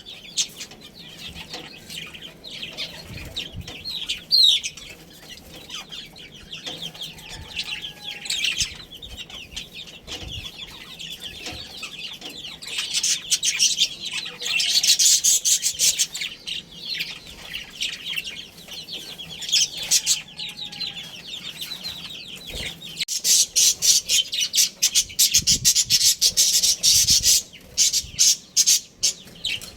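Budgerigars chattering and chirping continuously, a dense run of rapid high-pitched warbles and chirps that swells into louder, busier stretches a little before the middle and again near the end.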